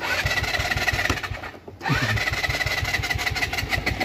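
Scooter engine running while riding, dropping off briefly just before two seconds in and then revving back up.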